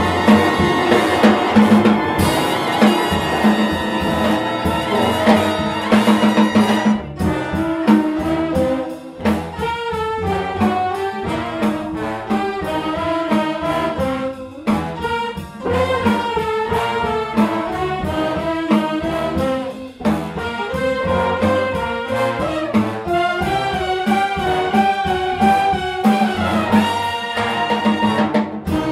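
Jazz big band playing: trumpets, trombones and saxophones over bass and drums. A dense, sustained full-ensemble passage gives way about seven seconds in to a thinner texture of moving horn lines over the drums.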